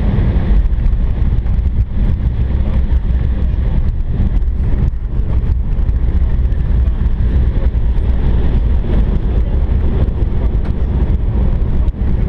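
Embraer 170 airliner rolling out on the runway after touchdown, heard inside the cabin: a loud, steady deep rumble of the engines and the wheels on the concrete, with occasional light knocks.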